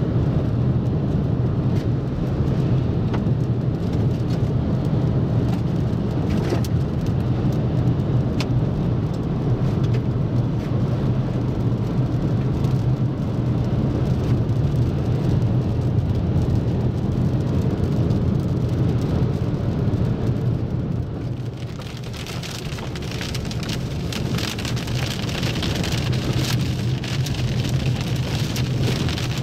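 Steady engine and road rumble heard inside a moving car's cabin, with scattered raindrops ticking on the windshield. About three-quarters of the way through, the rumble dips and a denser patter of rain on the glass builds up.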